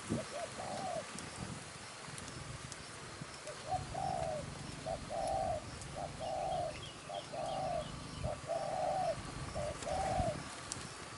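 Spotted dove cooing: repeated coo phrases, each a short note followed by a longer one. One phrase comes at the start, then after a pause of about three seconds the phrases follow steadily about every second and a half. Faint chirps of small birds can be heard in the middle.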